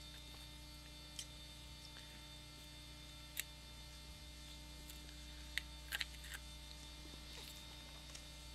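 Steady electrical mains hum, with a few faint light clicks as paper masks are lifted off the card with a small metal spatula.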